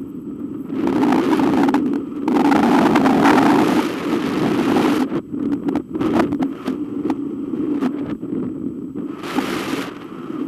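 Wind rushing over the microphone of a camera mounted on a hang glider in flight, swelling in strong gusts about a second in and again near the end, with short clicks and rattles in between.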